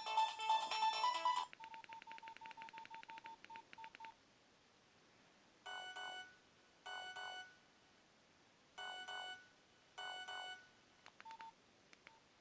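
Nokia 1112 mobile phone ringtones played through its small speaker: a ringtone tune ends about a second and a half in, and a fast run of short single-pitch beeps follows, slowing and stopping around four seconds in. After a pause come four short warbling ring bursts in two pairs, then a few faint clicks and beeps near the end.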